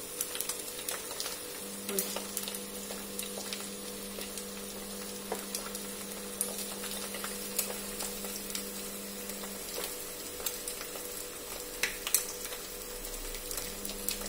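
Egg frying in oil in a small pan on a gas burner: a steady sizzle dotted with scattered crackles and pops.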